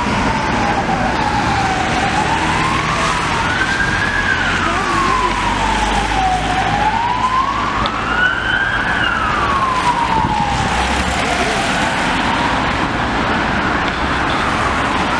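An emergency vehicle siren wailing slowly up and down, about one rise and fall every five seconds, growing fainter near the end. Under it runs the steady hiss of traffic on a wet road.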